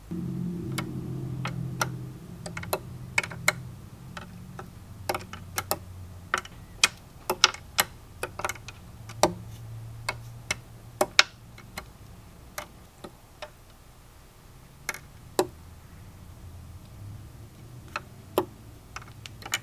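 Irregular sharp ticks and clicks, scattered unevenly and thickest in the middle of the stretch, over a low hum that is strongest for the first couple of seconds.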